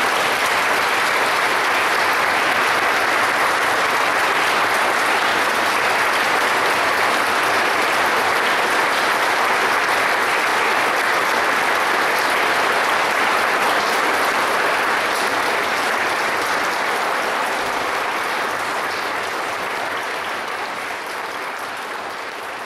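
Congregation applauding, a dense steady clapping that fades gradually over the last few seconds.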